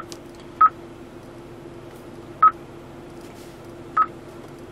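2013 Hyundai Veloster touchscreen navigation unit giving short beeps of one pitch as its screen is pressed, four times at uneven intervals.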